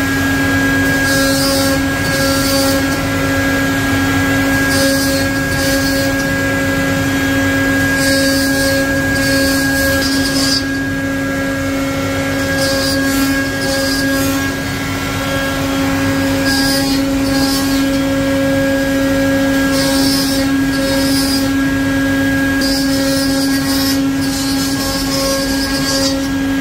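CNC wood-carving router at work: the spindle runs with a constant steady whine, while the cutting noise of the bit in the wood comes and goes in short spells every second or so.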